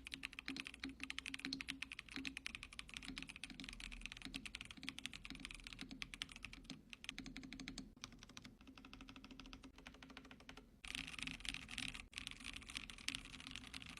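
Fast typing on an Attack Shark K86 mechanical keyboard fitted with creamy Blue Whale switches: a quick, steady stream of keystroke clicks. The keystrokes get brighter and a little louder about eleven seconds in.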